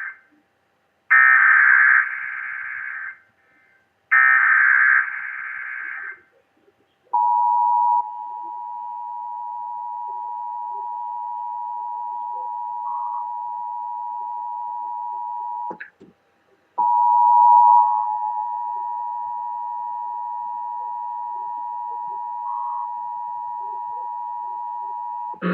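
Emergency Alert System activation for a test tornado warning: the screeching digital SAME header data bursts, then the steady two-tone EAS attention signal, which breaks off for about a second midway and starts again.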